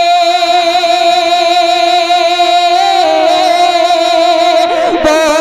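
A singer holds one long, wavering note of a naat, an Urdu devotional song in praise of the Prophet, drawing out the end of a line over a steady sustained tone.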